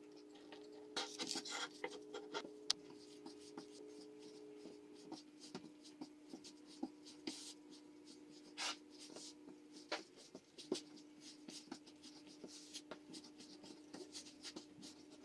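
Hands kneading a soft kefir dough on a floured countertop: faint, irregular rubbing and pressing with light knocks, over a faint steady hum.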